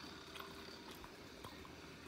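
Faint steady room hum with a few soft, scattered clicks, small handling or eating noises at a table.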